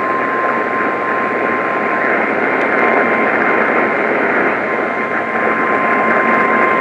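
NOAA Weather Radio warning alarm tone: a single steady beep at about 1050 Hz over heavy radio static. It signals that a warning broadcast, here a flash flood warning, is about to follow.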